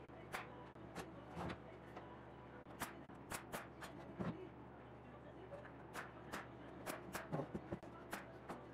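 Irregular sharp clicks and a few duller knocks from a plywood box being handled and turned over on a workbench, over a low steady shop hum.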